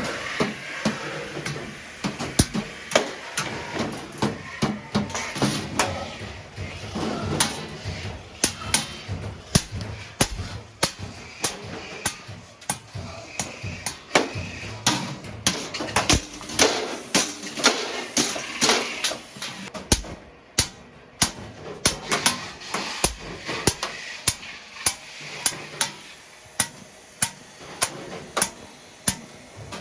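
Hammers striking an iron griddle plate: sharp metal blows about two a second at an uneven pace, with a brief pause about twenty seconds in.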